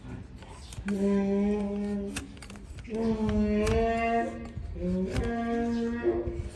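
A slow melody of long held notes, each about a second, sung or played, with a few sharp clicks between the notes.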